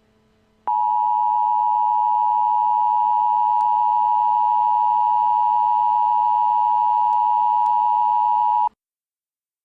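Emergency Alert System attention signal: a steady two-tone alarm held for about eight seconds, starting just under a second in and cutting off abruptly.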